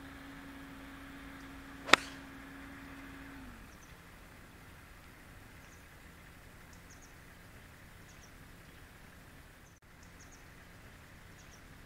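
One sharp click of a 4-iron striking a golf ball off the tee, about two seconds in. A low steady hum stops shortly after, and a few faint high bird chirps follow.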